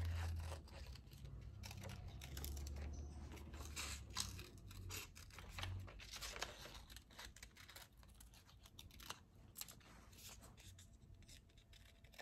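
Scissors cutting through a printed paper sheet: an irregular run of short snips with paper rustling, as an image is trimmed out along its outline.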